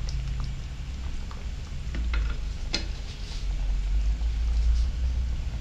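Thick coconut-milk curry simmering in a pan while a ladle stirs it, with a soft bubbling and a few sharp clicks about two to three seconds in, over a steady low hum.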